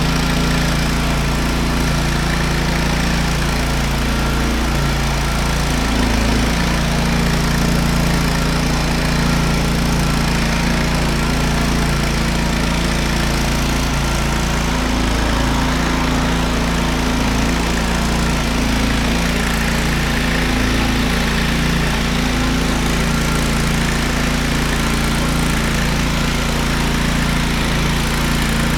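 Petrol-engine diamond floor grinder running steadily, its engine note wavering slightly now and then over a dense, even hiss.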